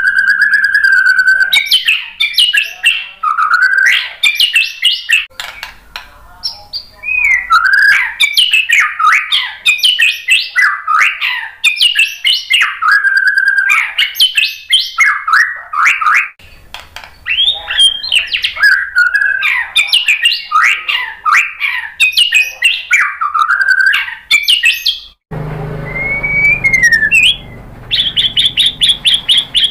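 White-rumped shama (murai batu) singing: one long steady whistled note at the start, then a stream of varied, fast-gliding whistled phrases with short pauses between them. Near the end a low background rumble comes in, with a slurred falling note and then a fast, high, repeated chatter.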